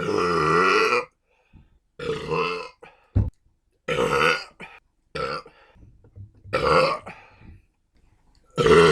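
A person burping again and again: about six separate voiced belches of varying length, their pitch wavering. The first lasts about a second, and a long one starts near the end. A brief low thump falls a little past a third of the way in.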